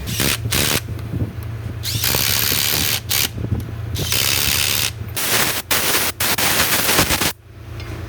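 Pneumatic impact wrench run in a series of bursts, some short and some over a second long, working bolts on a wheel loader's wheel-end final drive; it stops a little after seven seconds in.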